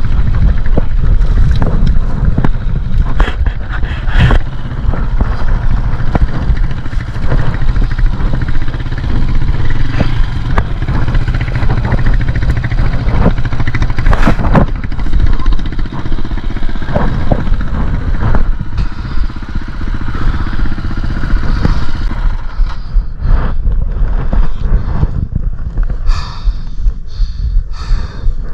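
KTM dirt bike engine running and being ridden, with repeated sharp knocks and clatter over rough ground. The sound grows sparser and more broken in the last several seconds.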